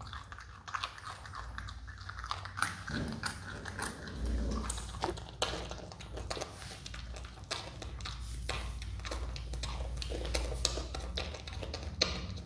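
Himalayan marmot gnawing and chewing a raw carrot: a rapid, irregular run of crisp crunches and clicks as its teeth grind through the carrot.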